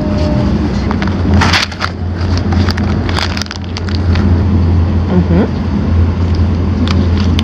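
Plastic snack wrappers crinkle and rustle as they are handled, with the strongest crackle about a second and a half in. Under them runs the steady low rumble of a high-speed train cabin in motion.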